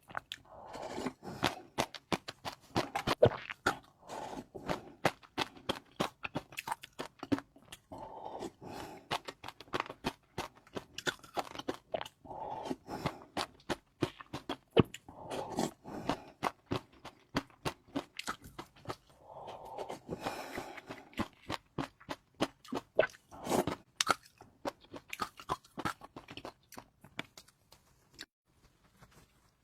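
Close-miked eating: a person biting and chewing crunchy food, with a dense, irregular run of crisp crackles and short munching bursts.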